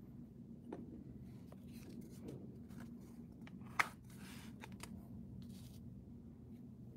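Small clicks and taps of nail-stamping tools being handled, with a sharp click a little under four seconds in and a short scraping sound right after it: a plastic scraper card drawn across a steel stamping plate to clear off excess stamping polish. A faint low hum runs underneath.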